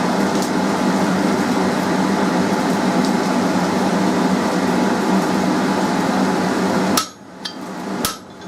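A steady rushing background noise, then near the end two sharp, ringing hammer blows about a second apart, striking a fullering tool into the end of a mild-steel bar on the anvil.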